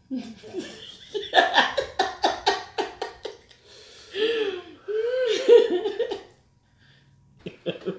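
A woman laughing heartily: a quick run of ha-ha bursts, then a longer, wavering laugh that dies away about six seconds in.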